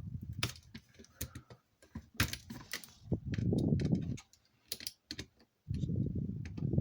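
Small plastic parts of a camera being handled and pried apart by hand: a run of light, irregular clicks and taps, with two stretches of low rubbing and scraping.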